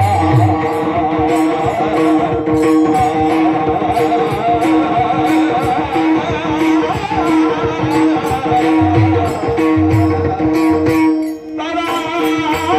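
Live devotional group music played through a PA loudspeaker: steady held notes under an even rhythm of sharp high strikes, with low drum strokes coming and going. The music thins out briefly near the end.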